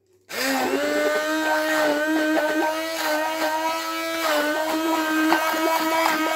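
Hand-held stick blender switching on about a third of a second in, spinning up and then running steadily with a constant motor whine as it blends a watery mash of insects in a plastic measuring jug.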